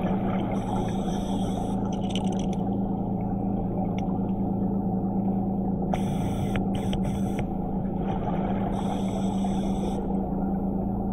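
Underwater hum of a DiveX Blacktip diver propulsion vehicle's motor and propeller running steadily. Three bursts of exhaled scuba regulator bubbles hiss over it.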